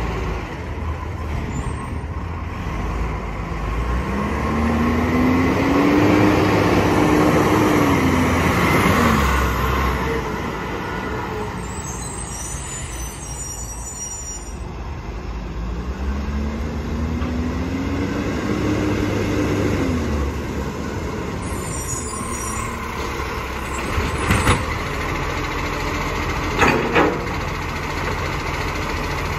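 Iveco side-loader garbage truck's diesel engine running, its pitch rising and holding then falling away twice as it drives up the street. Near the end come a couple of short, sharp sounds as it stops at the bins.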